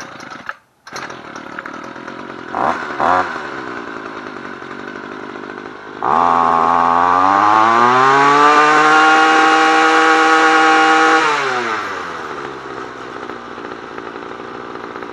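Homelite two-stroke string trimmer engine catching about a second in and idling. About six seconds in it is throttled up, the pitch climbing to a high whine that holds for about five seconds, then drops back to idle.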